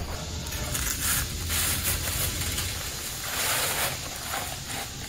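Dry concrete mix being shaken out of a bag into a cart tub, a rushing, hissing pour that comes in several surges.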